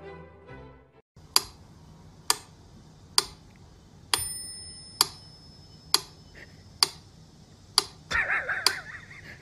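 A sharp metallic tick about once a second, evenly spaced. From about four seconds in, each tick is followed by a steady bell-like ring. Near the end there is a brief wavering cry.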